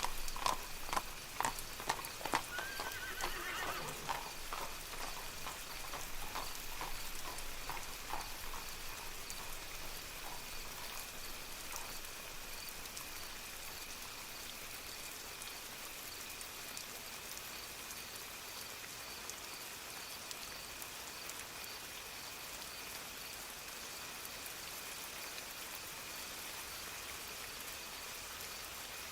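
Horse hooves clip-clopping at a walk, fading away over the first ten seconds or so, with a horse whinnying briefly about three seconds in. Steady rain falls throughout.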